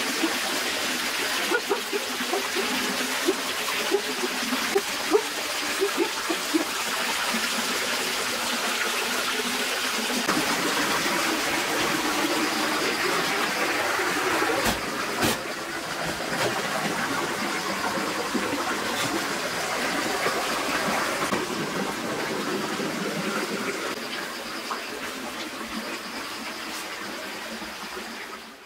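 Steady running water, an even rushing flow with a few sharp clicks, softening near the end.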